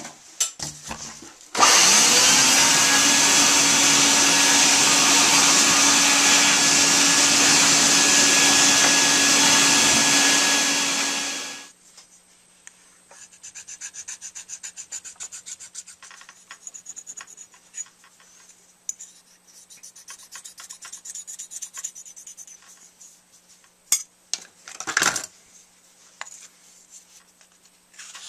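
A flex-shaft rotary tool spins up and runs steadily for about ten seconds as it grinds. Then come quieter, rhythmic strokes of a hand file on the silver-soldered brass of a metal saxophone mouthpiece, with a single knock late on.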